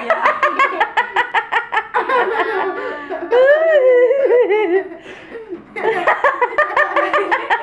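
A young girl laughing in quick high-pitched giggles, about five or six pulses a second, with a longer squealing laugh about halfway through.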